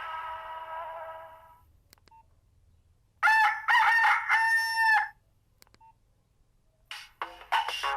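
Nokia 1600 mobile phone speaker playing a rooster-crow ringtone: a few short calls and a longer held call that bends down at its end, about three seconds in. Before it the previous tone's falling notes fade out, and near the end the next, melodic ringtone starts.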